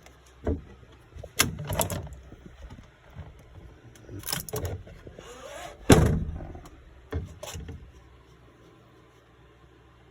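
A series of knocks and clunks from something being handled, in irregular groups, the loudest about six seconds in.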